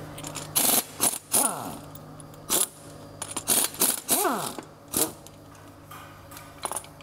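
Sharp metallic clicks and clinks of a hand-held power ratchet working the connecting-rod cap nuts off the crankshaft of a Hyundai D4CB diesel engine, with two short whirs that rise and fall in pitch, about a second in and again a little after four seconds in. A low steady hum runs underneath.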